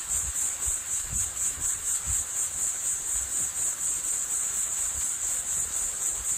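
Footsteps on a dirt and leaf-litter forest trail, heard as soft low thuds, under a continuous high-pitched buzz that pulses about three times a second.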